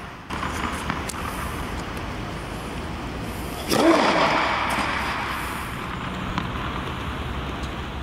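A tennis racket strikes the ball on a serve, one sharp loud smack about halfway through. It sits over a steady rushing background noise, with a few lighter knocks earlier on.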